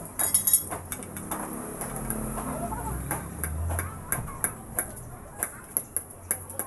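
Hammer striking the steel steering knuckle of a truck's I-beam front axle during kingpin and bearing replacement: sharp metal-on-metal taps, a quick cluster near the start, then single taps spaced out over the last few seconds.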